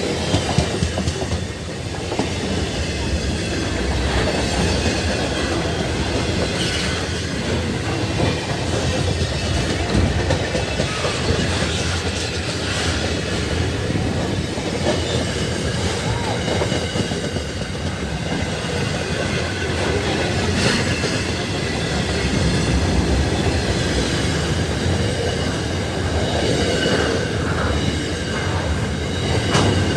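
Freight train rolling past, its wheels clattering over the rails in a steady, continuous din, with faint high-pitched squeal from the wheels.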